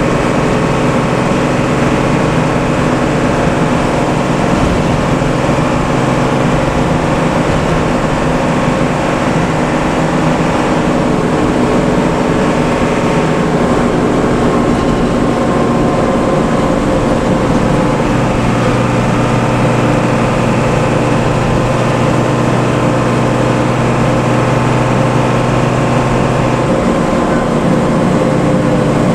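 Heavy bus diesel engine running steadily through its exhaust, a continuous low drone. A deeper steady tone joins in about two-thirds of the way through and fades out a few seconds before the end.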